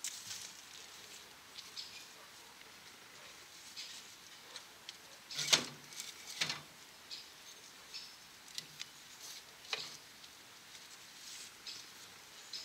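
Scattered light clicks and knocks of hands and tools working on a small air-cooled diesel engine that is not running, with two louder knocks about halfway through.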